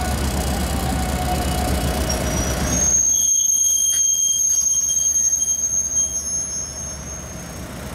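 Passing trains rumbling on steel rails. From about two and a half seconds in, a high, steady steel-wheel squeal rings out over the lighter rumble and stops near the end.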